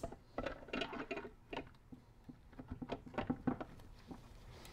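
Scattered light clicks and knocks of metal parts as a Volkswagen air-cooled transaxle's aluminium case half is worked down over the carrier assembly and gears.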